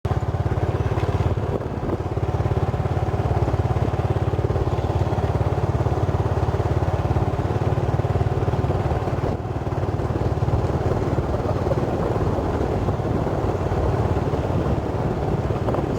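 A small engine running steadily at an even speed, with a rapid low pulsing.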